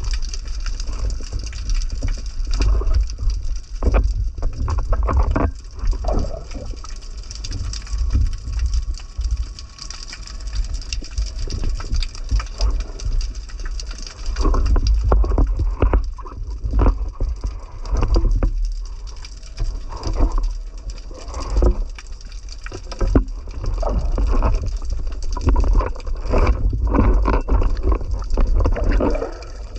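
Underwater sound picked up by a camera in its waterproof housing: a constant low rumble of moving water with muffled bubbling and many irregular knocks and clicks as the diver moves and handles the speargun and catch.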